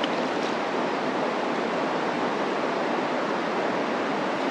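Rushing water from a waterfall and fast river current: a steady, even rush with no breaks.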